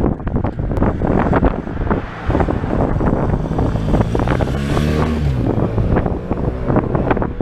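Motorcycle engine passing close by, its note dropping in pitch as it goes past the middle, with wind buffeting the microphone.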